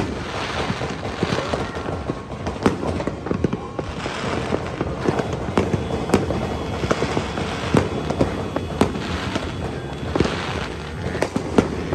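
New Year fireworks going off: irregular sharp bangs and pops, one after another, over a steady crackling din.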